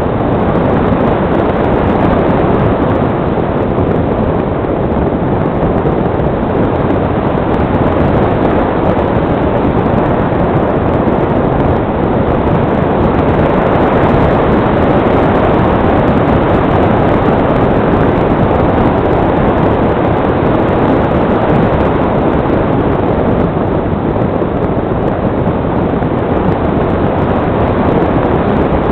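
Steady rush of airflow over the microphone of a camera mounted on a flying radio-controlled model glider, with no motor note heard.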